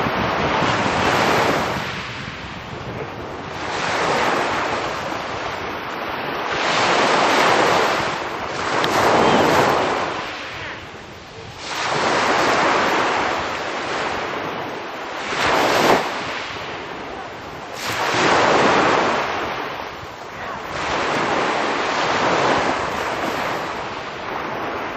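Small waves breaking and washing up a pebble beach close by, a fresh surge of surf every two to three seconds, with wind buffeting the microphone.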